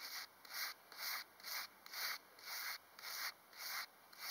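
A toothbrush scrubbing dirt off a thin copper token held on a denim-covered knee, in even back-and-forth strokes about two a second.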